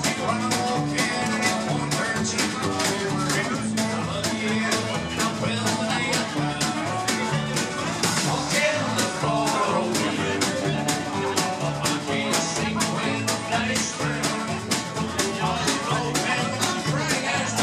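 Live country band playing: guitar and bass over a steady drum beat.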